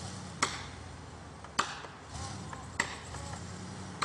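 Repeated sharp chopping strokes on wood, evenly paced at about one every 1.2 seconds: three clear blows and a fourth right at the end.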